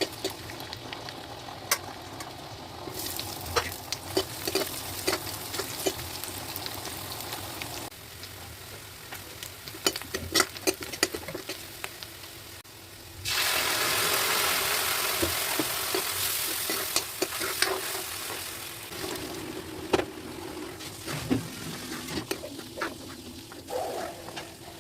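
Cooking in a pan, with a spoon clinking against it as the food is stirred. A little past halfway a loud sizzle starts suddenly, as food meets hot fat, and dies down over about five seconds.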